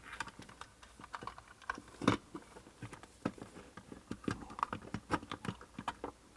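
Blue plastic cut-in electrical box being handled and worked into a hole in drywall: irregular small plastic clicks, taps and scrapes, the loudest about two seconds in.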